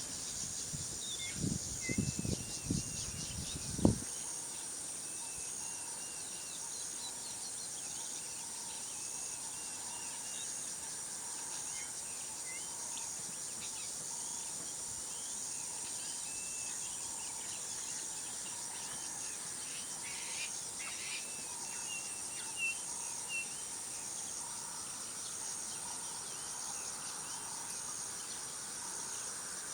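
Daytime bush ambience: insects shrill steadily in a high pulsing chorus, with scattered short bird chirps. A few low thumps come in the first few seconds.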